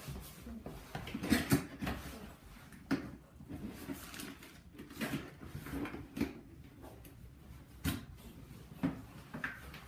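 Cardboard box being opened by hand: irregular scrapes, taps and rustles of cardboard and packing.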